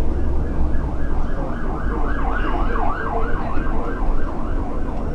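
Emergency vehicle siren in a fast yelp, sweeping up and down about three times a second, growing louder toward the middle and fading near the end, over the steady low rumble of the bus it is heard from.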